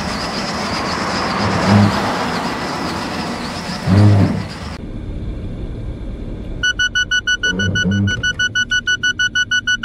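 A steady rush of road and wind noise as a Suzuki Swift runs up on a bicycle dummy at about 60 km/h and brakes automatically, with a short low groan about four seconds in. After a cut to inside the cabin, the car's forward-collision warning beeps rapidly, about three beeps a second.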